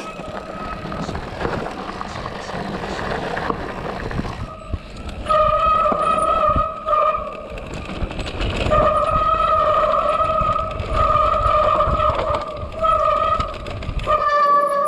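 Mountain bike disc brakes squealing in a steady high tone that starts about a third of the way in and cuts in and out as the brakes are applied and released. Beneath it runs the rush of wind and tyres on the trail.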